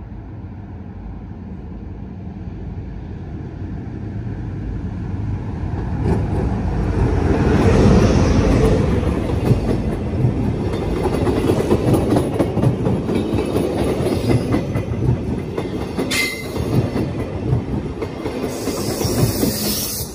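Passenger train arriving behind a Taurus electric locomotive: the rumble grows as the locomotive approaches and passes, loudest about eight seconds in, then the coaches roll by with their wheels clattering over the rail joints. There is a brief wheel squeal about sixteen seconds in and a hiss near the end.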